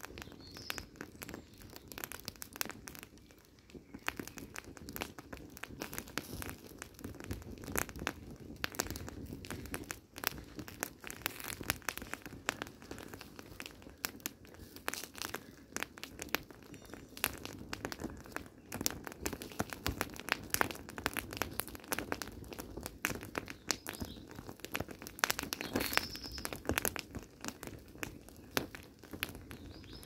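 Burning leopard-print ballet flats crackling and popping in a small open fire, a dense, irregular run of small snaps throughout.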